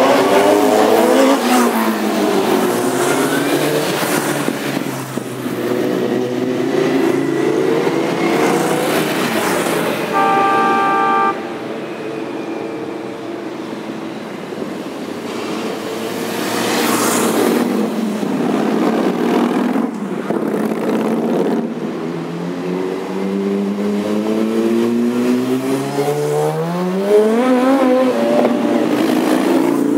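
A line of motorcycles riding past one after another, each engine note rising as it approaches and falling as it goes by. A horn sounds once, for about a second, about ten seconds in.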